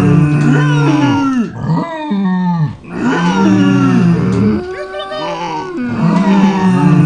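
Several farm animals calling over one another: long, low, drawn-out calls layered together, with short breaks about two and five seconds in.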